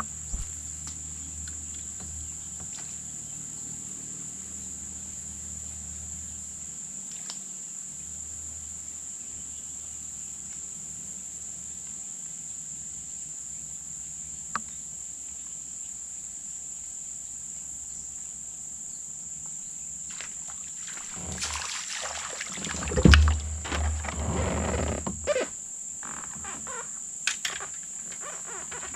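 Insects droning with one steady, high-pitched note. About 21 to 26 seconds in comes a burst of knocks and rustling, loudest around 23 seconds.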